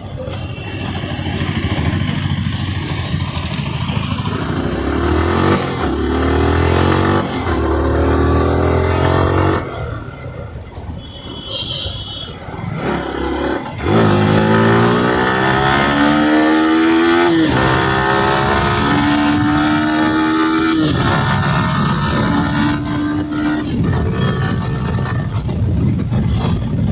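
Yamaha R15 M's 155 cc single-cylinder engine accelerating through the gears, its pitch rising in several pulls and falling at each shift, then running steadily at road speed under wind and tyre noise. It eases off for a few seconds about ten seconds in, when a short high beep sounds.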